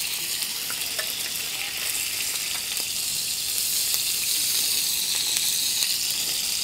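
Hot rendered bacon fat sizzling steadily in a stone-coated frying pan as the bacon is lifted out.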